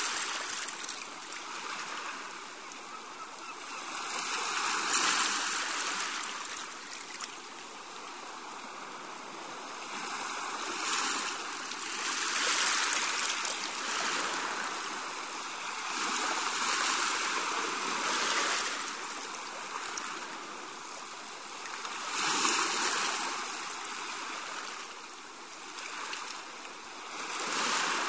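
Sea waves washing on the shore, a steady hiss that swells into a louder surge every five or six seconds and then eases back.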